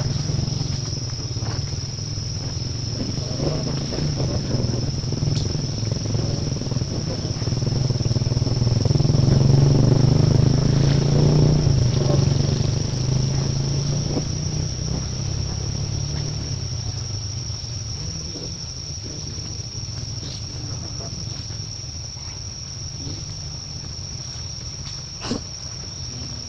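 Steady high-pitched insect drone, under the low rumble of a motor vehicle that swells to its loudest about ten seconds in and then slowly fades as it passes.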